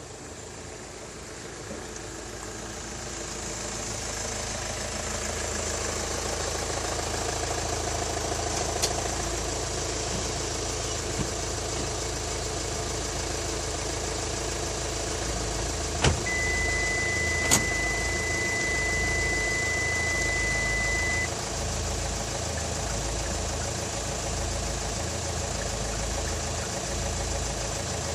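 Hyundai SUV engine idling steadily, with a few light clicks. About halfway through, a steady high-pitched beep sounds for about five seconds.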